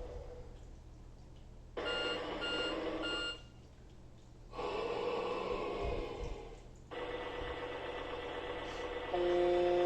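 Sound effects played one after another through the small speaker of a Fisher-Price Code 'N Learn Kinderbot toy robot in its sound test mode. First come three short beeps over a hissy electronic noise, then a brief gap and a longer noisy electronic effect. After that a steady buzzing tone sets in, with a short chord of tones just before the end.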